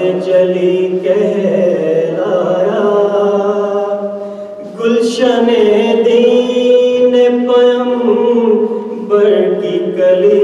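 A man chanting an Urdu devotional poem unaccompanied, in long held melodic lines, with a brief breath pause about four and a half seconds in before the next line starts louder.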